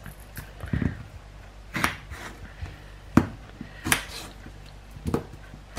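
Kitchen knife cutting through raw potatoes into wedges, the blade knocking on the chopping board in six short knocks roughly a second apart, the loudest a little past the middle.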